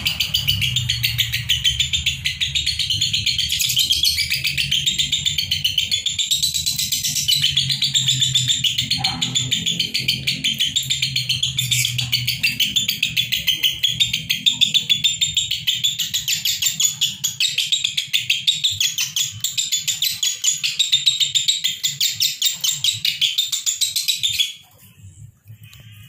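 Fischer's lovebirds singing nonstop in a fast, shrill stream of chirps without a break: the continuous 'konslet' song. The song cuts off suddenly near the end.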